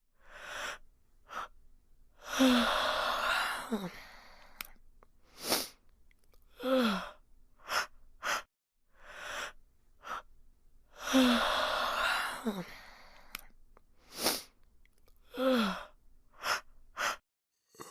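People yawning over and over: long breathy inhales, each ending in a falling vocal 'ahh', with short breaths and puffs in between. The same run of yawns seems to come round twice, as if a yawning clip were repeated.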